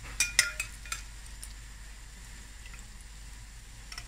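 A perforated metal skimmer clinks sharply several times against a glass bowl of syrup in the first second, with one more light clink near the end. Under it, a pan of oil frying pastries sizzles faintly and steadily.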